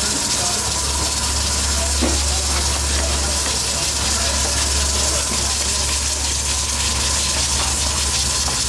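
Steady roar and hiss of gas burner flames under a karahi of boiling mutton broth, with a deep low hum running under it.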